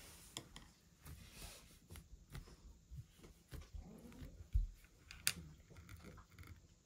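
Soft squishing and light tapping of Play-Doh-like modeling dough being kneaded and handled on a table, with a sharper click about five seconds in.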